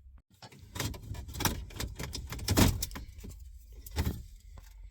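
A string of irregular clicks, knocks and rattles from hands working the factory stereo and its removal tools out of the van's dashboard, with the loudest knocks about two and a half seconds in and near four seconds.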